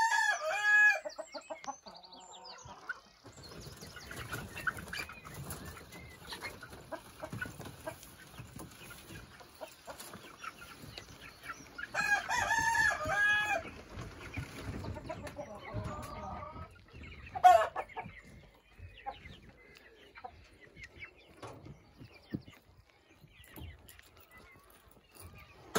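A rooster crowing twice, once at the start and again about halfway through, with hens clucking softly in between. A single sharp knock comes about two-thirds of the way through.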